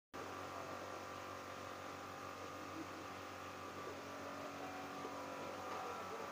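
Electric motor of a motorised rolling shutter running with a faint, steady hum made of several steady tones, as the shutter is lowered.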